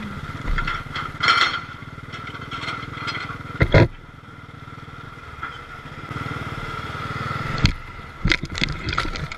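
Motorcycle engine running steadily as the bike rides a rough dirt road. Loud knocks come about a third of the way in and again near the end, followed by a quick cluster of smaller knocks, from the bike jolting over the uneven surface.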